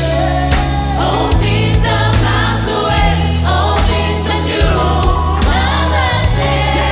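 Gospel choir singing over a live band, with a steady bass line and regular drum and cymbal hits about once a second.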